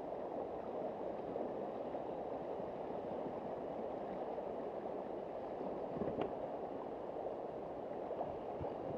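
River current rushing and gurgling around a rock, a steady noise of fast-flowing water.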